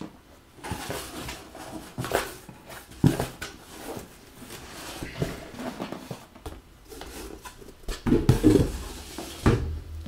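Cardboard box being unpacked by hand: rustling of plastic air-cushion packing and cardboard flaps, with several knocks and thumps as a flat cardboard presentation box is shifted and lifted out, the heaviest bumps near the end.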